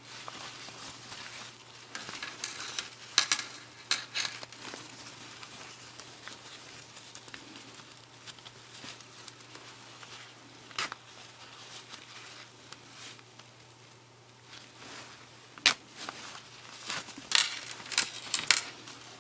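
Rustling and crinkling of a small fabric garment being handled and shaped by hand, with scattered sharp clicks and taps, over a faint low steady hum.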